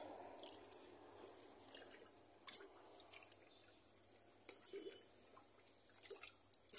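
Soaked coconut coir being stirred with a plastic pipe in a tub of water to rinse out lime: soft sloshing and squelching, with scattered sharp clicks and knocks, the loudest near the end.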